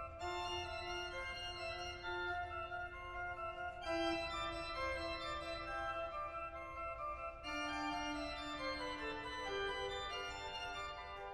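Organ music: slow, sustained chords, each held for about four seconds before the next.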